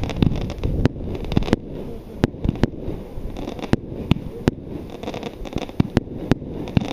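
Mars Pyrotechnics B-52 52-shot firework cake firing: sharp bangs of shots and bursts, irregular at about two a second, over a continuous low rumble.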